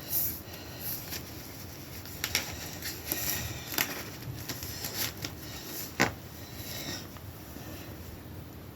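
Hands rummaging through a shipping box packed with foam packing peanuts and cardboard: irregular rustling and crackling with scattered sharp clicks, the sharpest about six seconds in.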